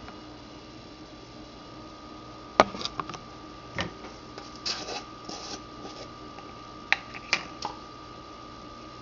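A few scattered clicks and knocks of small objects being handled, over a steady electrical hum.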